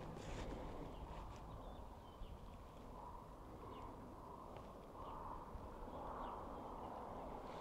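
Faint outdoor ambience: a few footsteps in the first second and a half, then faint bird chirps here and there.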